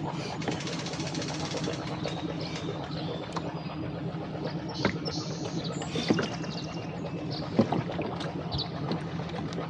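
A rowboat moving through choppy water: splashing and a steady low hum, with a few sharp knocks about halfway through and again near the end.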